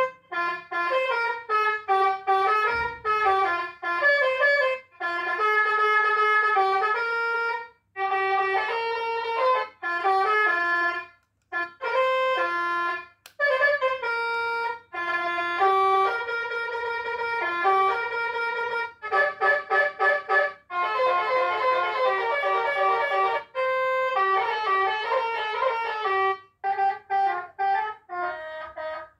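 Electronic 'Basuri' telolet bus horn playing a run of melodic tunes, note by note in short phrases separated by brief breaks, with a faster, busier passage about twenty seconds in.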